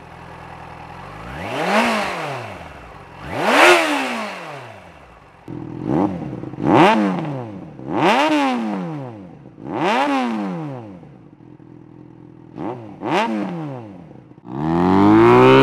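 2007 Yamaha FZ6's 600 cc inline-four, breathing through a homemade twin-glasspack slip-on exhaust, being revved in a series of quick throttle blips. Each rev climbs sharply and falls back to idle, roughly every two seconds, a few of them in quick pairs. Near the end the engine comes in loud and steady, its pitch climbing slowly.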